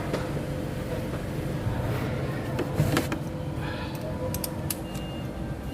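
Scattered light metallic clicks and knocks of hand tools over a steady low mechanical hum.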